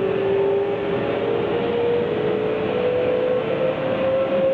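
Keihan 9000-series electric train running, with the traction motors' whine rising steadily in pitch as the train accelerates over a steady rumble of wheel and running noise.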